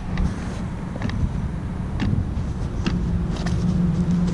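A control-line model airplane's small engine running at a steady high buzz, dropping away about half a second in and coming back near three seconds. Wind rumbles on the microphone, with a few light clicks.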